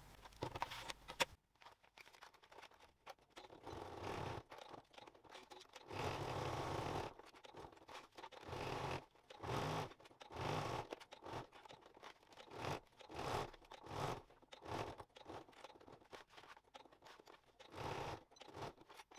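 Domestic sewing machine stitching a seam around the pocket in stop-start runs, most of a second or less, with one longer run about six seconds in.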